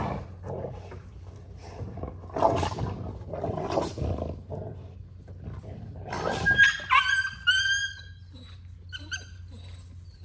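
An adult American bully dog snarling and snapping at a puppy, then the puppy yelping in a run of high, falling cries about six seconds in, with two shorter yelps near the end: the puppy has just been bitten in the face as a correction.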